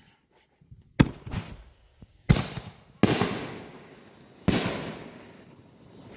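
Consumer fireworks going off: four sharp bangs, about a second in, near the middle twice, and once more later, each with a fading tail.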